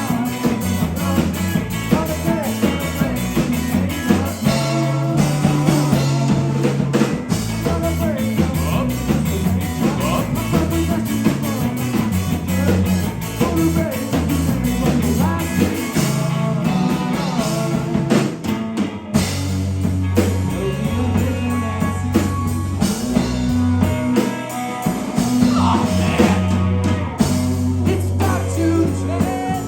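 Live rock band playing a song: drum kit, bass guitar and electric guitar, with sung vocals.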